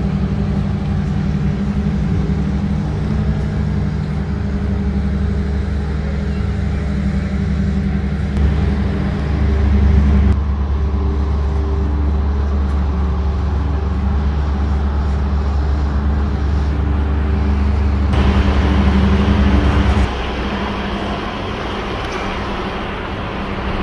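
A motor vehicle engine running steadily close by, with a loud, constant low hum. The sound shifts abruptly about ten seconds in and again near eighteen seconds, and the hum drops away about twenty seconds in, leaving general traffic noise.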